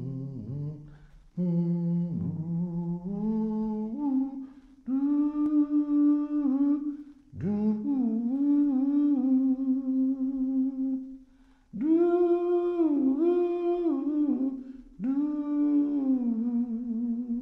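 A single voice humming a slow, wordless melody in long held phrases with short pauses between them, the tune stepping up in pitch after the first few phrases.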